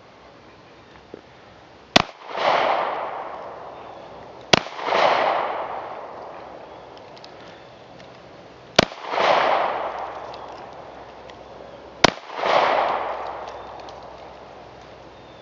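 Four pistol shots from a Caracal F 9mm handgun, fired at uneven intervals a few seconds apart. Each crack is followed a moment later by a longer rolling echo that dies away over a second or two.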